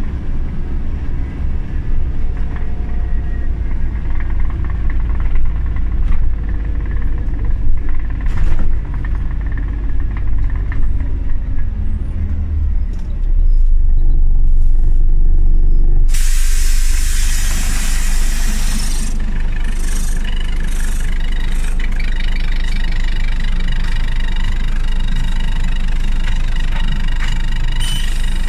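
Interior of a Scania OmniCity city bus: a steady low engine and road rumble, then about halfway a sudden sharp air hiss that carries on as a steady hiss over the engine.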